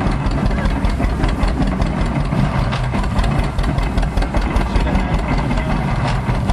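Old tractor engine running steadily under belt load, driving an antique stationary straw baler, with a fast even mechanical knocking throughout.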